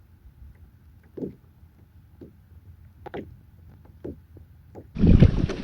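A few faint, short knocks over a quiet background, then about five seconds in a sudden loud rush of steady wind and water noise, as from a kayak out on open water.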